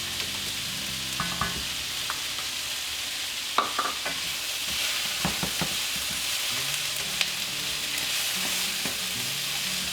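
Chopped garlic, broccoli and onions sizzling steadily in hot oil in a frying pan, with a few short knocks of a utensil on the pan as it is stirred.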